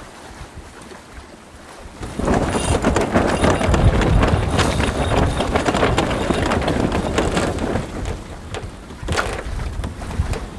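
Wind and sea rushing over a sailing yacht during a tack in about 30 knots of wind. From about two seconds in, a dense run of rapid clicking sets in as the new jib sheet is pulled in on a winch.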